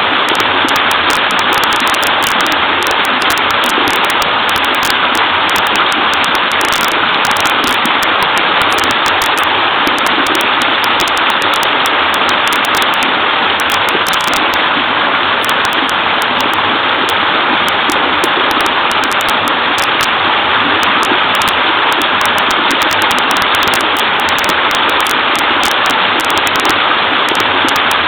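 Small waterfall on a creek, water splashing and babbling in a steady, unbroken rush.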